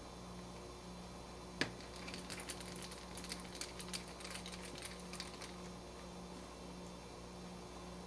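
Faint clicks and ticks of a small screwdriver working the screws of a GoPro Hero3 Black's case: one sharper click about a second and a half in, then a run of light, irregular ticks for about three seconds.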